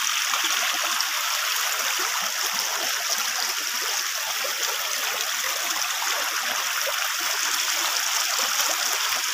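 Steady, unbroken rushing noise of running water.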